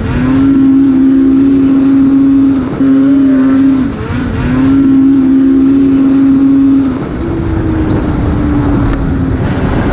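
Snowmobile engine held at high revs with a steady whine. It dips briefly twice as the throttle eases, then after about seven seconds a sled passes with its pitch sliding down.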